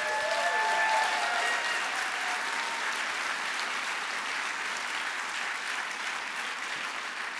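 Audience applauding and cheering. A few held cheers ride over the clapping in the first few seconds, and the applause then eases off slowly.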